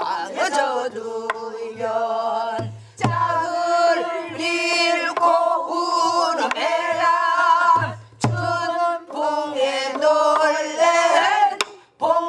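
A class singing a Namdo folk song together, led by a woman's voice, in long held notes that bend and waver, with short breaks for breath. A buk barrel drum marks the rhythm with low strokes and sharp stick hits at each break, every few seconds.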